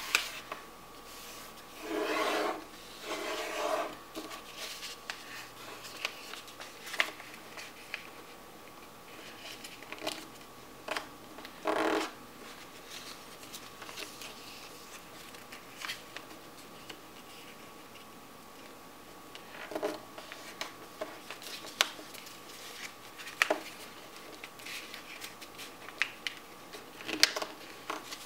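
Paper being folded and creased by hand on a tabletop: scattered rustling and rubbing as fingers press and run along the folds, with louder stretches of rubbing about two seconds in and around twelve seconds in.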